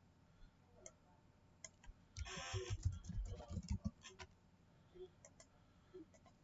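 Scattered light clicks, with a louder burst of noise and low thumps from about two seconds in that stops about four seconds in.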